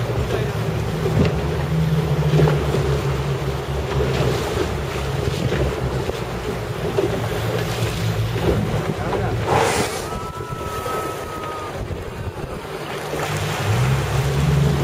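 An inflatable boat's engine idles steadily under wind buffeting the microphone and sea washing against the hull. The engine hum drops back about two-thirds in and picks up again near the end. There is a short whoosh about two-thirds in, followed by a brief, steady two-note tone.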